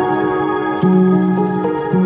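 Slow, calm new-age instrumental music of long held notes. A new, louder low note comes in just under a second in.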